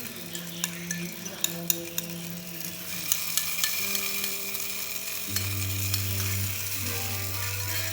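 Fish balls frying in hot oil, a steady sizzle that grows fuller after a few seconds, with scattered clinks of a utensil against the pan.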